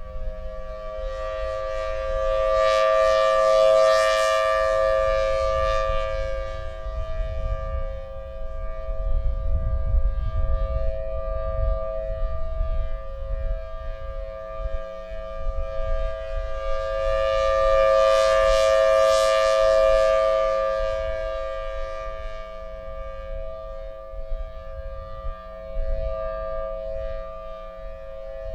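Federal Signal Thunderbolt 1003 civil defense siren sounding its steady Alert tone: two held pitches together, swelling loud twice, about fifteen seconds apart, as the rotating horn sweeps past and fading between. Wind rumbles on the microphone underneath.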